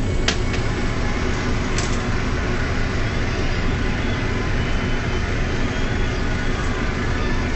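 Mercedes-Benz O405 bus's straight-six diesel engine idling steadily, heard from inside the passenger cabin, with two short clicks about a third of a second and about two seconds in.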